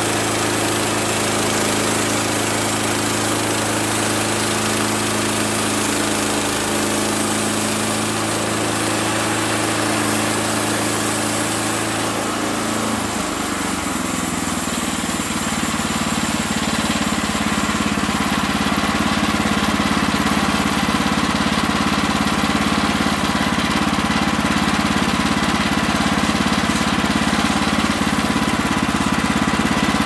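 Gas engine of a Woodland Mills HM130 MAX portable band sawmill running steadily while the band blade saws through a log. The engine note changes about a third of the way through.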